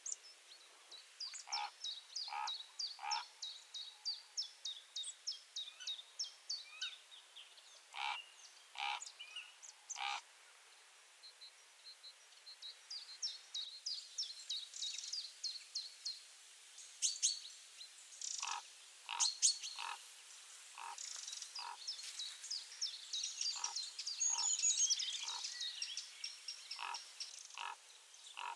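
Outdoor ambience of short, high chirping calls from small animals, repeating a few times a second, with a denser run of overlapping chirps in the second half.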